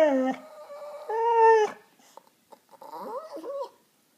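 Pet dogs, a doodle and a toy rat terrier, howling as they beg for pizza. A long howl falls in pitch and ends just after the start, a second strong howl comes about a second in, and a higher, wavering whine follows near the end.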